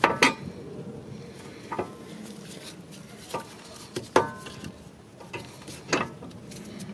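Metal clinks and knocks from a rear disc brake being reassembled by hand: the brake pads and caliper knocking against the steel caliper bracket. There are several sharp, separate knocks, each with a brief ring, spaced a second or more apart.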